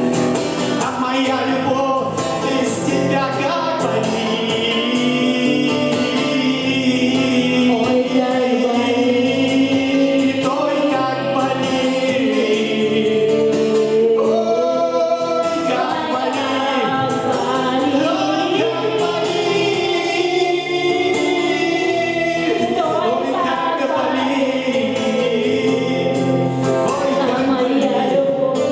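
A song playing: a sung melody over an instrumental backing.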